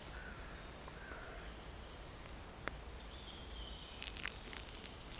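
Faint bird chirps over quiet woodland. About four seconds in, water starts pouring from a plastic bottle onto the ashes of a put-out campfire, splashing on the burnt ground to douse the last embers.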